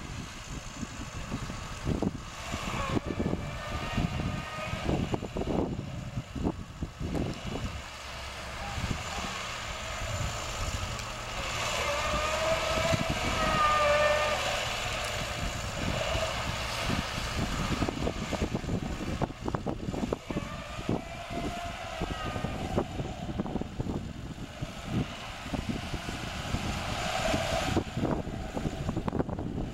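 Lada Niva's four-cylinder petrol engine revving hard and repeatedly under load as the stuck 4x4 strains to pull itself through deep marsh mud. The pitch climbs to its loudest about halfway through, falls, then rises again twice near the end.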